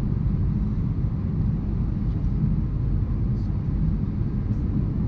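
Steady low rumble inside the cabin of an Airbus A319 with IAE engines: engine and airflow noise.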